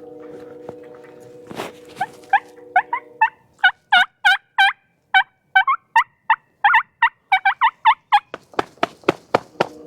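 Wild turkey yelping in a rapid series of loud calls, then breaking into sharp clucks near the end. A steady low hum runs under the first few seconds.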